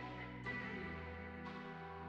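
Background music: a soft instrumental track of sustained, layered tones, with new notes coming in about once a second.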